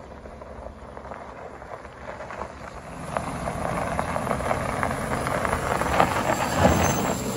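Ford F-150 pickup towing a large box trailer, approaching on a gravel road: its engine running and its tyres crackling over the gravel, getting louder from about three seconds in as it draws close.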